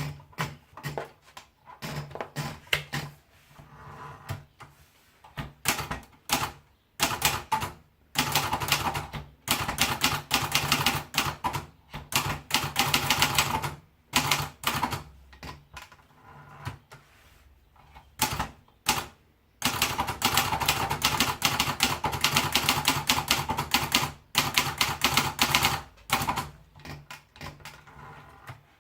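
Olivetti Lettera 82 manual portable typewriter being typed on: rapid runs of keystroke clacks in bursts, separated by short pauses.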